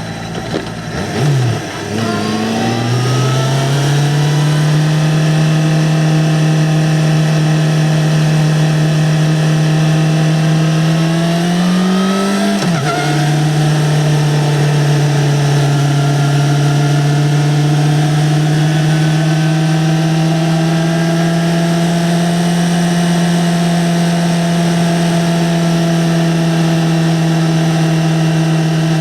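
A 2009 Yamaha XJ6-N's 600 cc inline-four running through its stock exhaust. It picks up about two seconds in with the revs climbing slowly, drops sharply in pitch about twelve seconds in as it shifts up a gear, then runs on at nearly steady revs.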